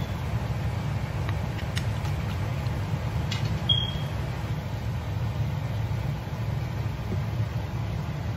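A steady low mechanical hum, with a couple of faint clicks and a brief high squeak a few seconds in.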